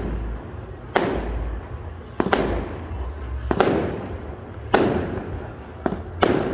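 Fireworks bursting overhead in a steady series of sharp bangs, about one a second with a quick double near the start. Each bang trails off in a fading echo.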